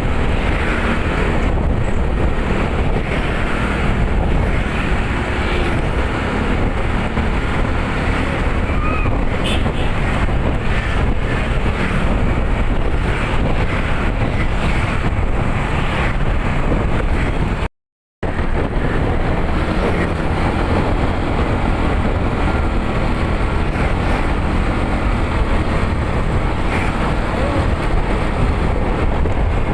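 Bus on the move: steady engine and road rumble with wind buffeting the microphone. The sound cuts out for about half a second just past the middle.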